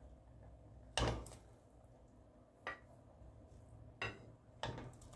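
Four separate knocks and clinks of kitchen utensils against a metal cooking pot, the first, about a second in, the loudest.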